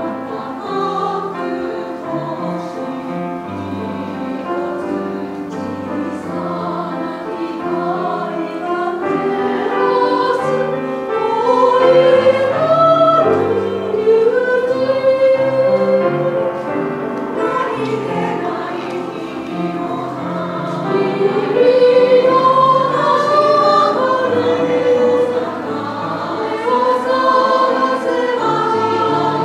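Women's choir singing in parts with grand piano accompaniment, swelling louder around the middle and again about three-quarters of the way through.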